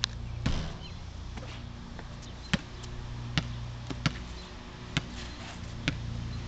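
A basketball being dribbled on an asphalt driveway: about seven sharp, single bounces, roughly once a second and unevenly spaced.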